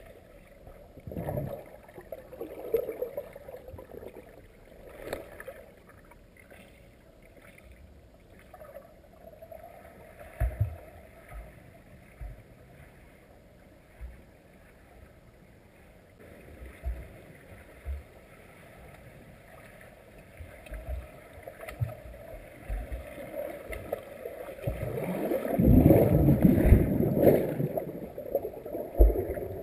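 Muffled underwater sound of a swimmer's strokes and kicks churning pool water, heard from below the surface: scattered low thumps at first, then a louder churning stretch near the end as the swimmer passes overhead.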